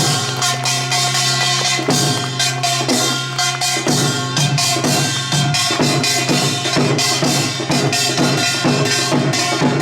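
Korean samulnori percussion ensemble playing a fast rhythm: the small kkwaenggwari gong and janggu hourglass drum struck in dense, rapid strokes over gong tones that ring on throughout.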